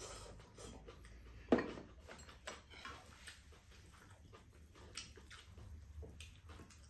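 Eating noises at a meal of glass noodles: chopsticks clicking and scraping against bowls and a pan, with slurping and chewing. A louder knock about one and a half seconds in.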